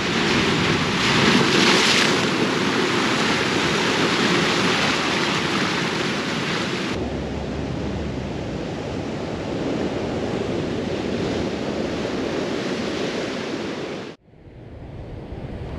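Ocean surf breaking, with wind on the microphone. The sound changes abruptly about halfway through, turning duller with more low rumble, and drops away suddenly near the end.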